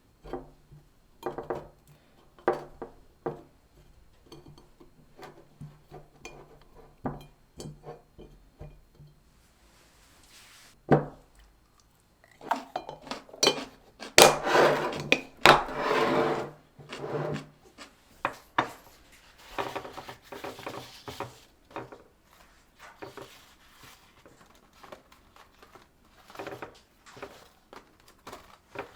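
Kitchen handling sounds: dishes and food containers clinking and knocking as they are picked up and set down, with a louder, busier stretch of handling about halfway through.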